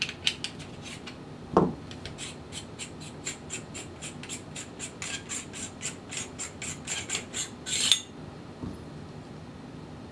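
Metal parts of a Ruger Mark IV integral suppressor being taken apart by hand as the tube is worked off the barrel and the baffle core removed. A dull thump comes about a second and a half in, then a run of quick light metallic clicks, about five a second, ending in a louder rattle near the end.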